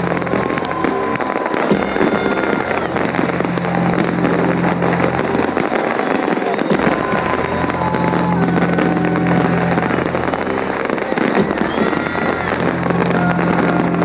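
Fireworks crackling and popping in a dense, continuous barrage. Voices from the crowd and music with a recurring low bass note sound underneath.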